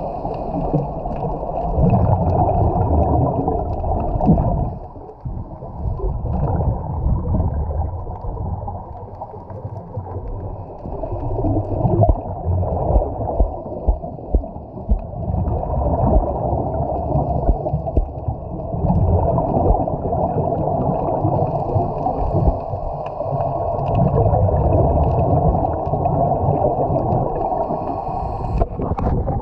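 Muffled underwater rumbling and gurgling picked up by a camera in its housing, swelling and fading in waves, with a run of sharp pops around the middle.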